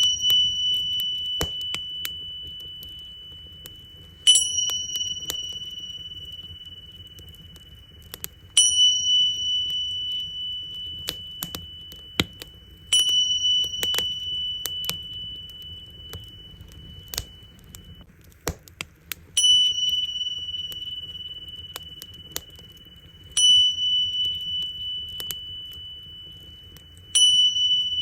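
Tingsha cymbals struck together about every four to six seconds, six times, each strike a bright high ring that slowly fades. Underneath, a bonfire crackles and pops steadily with a low rumble.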